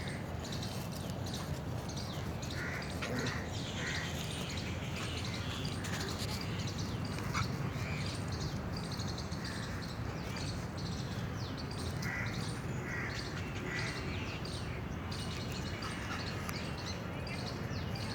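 Birds calling outdoors: short harsh calls now and then over many small chirps, with a steady low background rumble.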